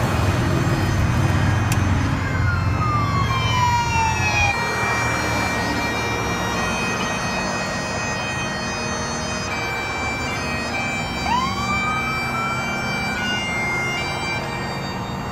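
Motorcycles and cars passing on a highway, their engine and tyre noise loudest in the first few seconds. A siren winds down in pitch a few seconds in, and another winds up in pitch a little past the middle.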